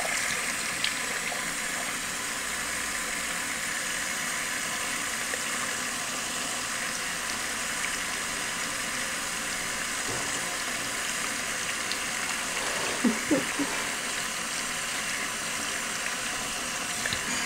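Steady stream of running water pouring onto a pet rat's back and splashing into a tub, with a couple of short, louder sounds about thirteen seconds in.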